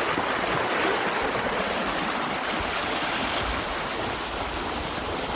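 Creek water rushing steadily, a full stream with a lot of water in it, heard from the bank above. A little low wind rumble on the microphone.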